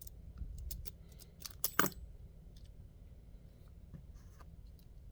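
Small metallic clicks and scrapes of a lock pick working inside a lock, with a louder double click a little under two seconds in and sparser faint clicks after.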